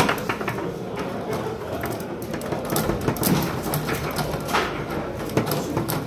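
Foosball table in play: the ball is struck by the rod figures and knocked around the field, giving irregular sharp clacks over steady background noise.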